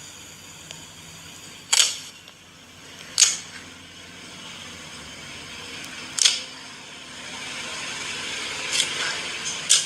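Slime being squeezed and stretched by hand, giving about five sharp popping clicks as trapped air bubbles burst, over a soft crackling squish that grows louder in the last few seconds.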